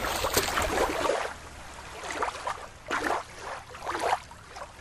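Shallow water splashing and lapping, loudest in the first second, then quieter watery swishes about once a second.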